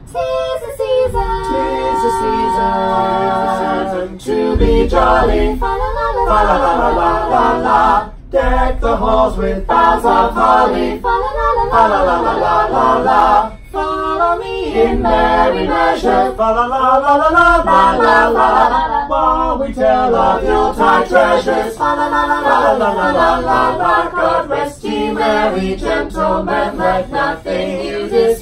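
A small group of men's and women's voices singing a Christmas carol a cappella in harmony, opening on held chords, with short breaks between phrases.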